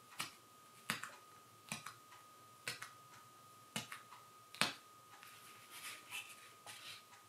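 A pin being pushed through black paper: about six sharp pops roughly a second apart as pinholes are pierced, then softer rustling as the paper is handled near the end.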